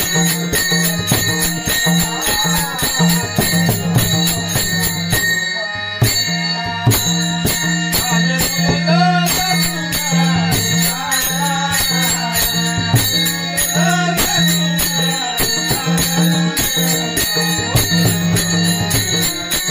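Varkari bhajan music: small hand cymbals (taal) clashing in a quick, steady rhythm over a sustained drone, with a wavering melody line rising and falling in the middle.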